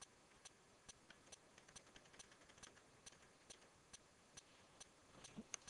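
Near silence, with faint, short ticks at a fairly even pace of a little over two a second.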